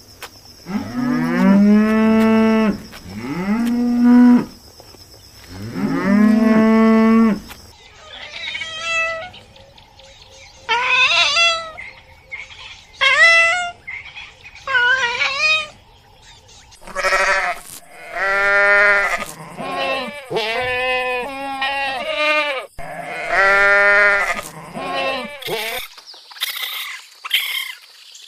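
Cattle mooing, a long run of drawn-out calls one after another, some of them higher-pitched, with a few short scratchy sounds near the end.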